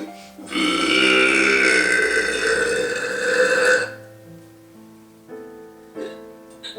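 A woman's long, loud belch lasting about three seconds and dropping in pitch, over background music.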